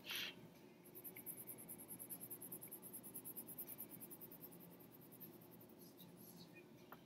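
Faint scratching of a pen writing on paper at a desk, with a brief soft hiss at the very start.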